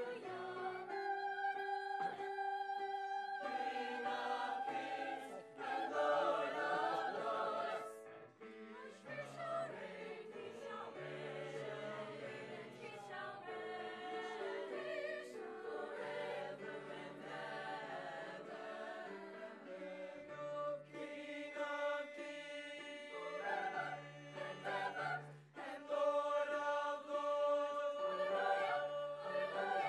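Mixed-voice high school madrigal choir singing in harmony, holding long chords that change every second or two.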